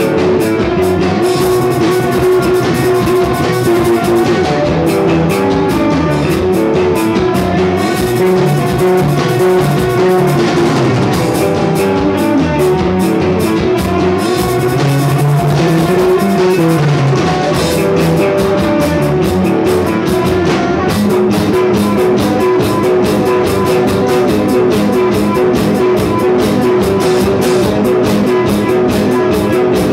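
Rock band playing: drum kit and guitar, loud and continuous.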